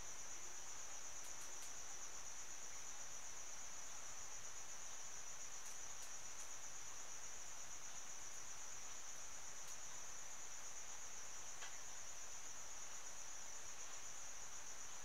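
Crickets chirring in a steady, unbroken high-pitched trill, with a few faint ticks.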